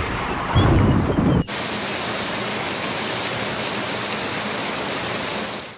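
Thunderstorm: a loud low rumble of thunder for about the first second and a half, then an abrupt cut to the steady rushing noise of a heavy downpour, which stops suddenly near the end.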